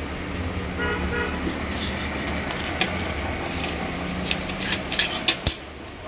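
Origami paper creasing and crinkling under the fingers, with a run of sharp crackles and a tap near the end. About a second in, a horn toots twice briefly over a low steady rumble.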